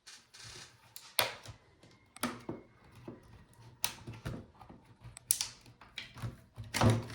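Scattered sharp clicks and taps of hand tools on a laptop's plastic case as the back hinge cover is unscrewed and worked off, with the loudest knock near the end.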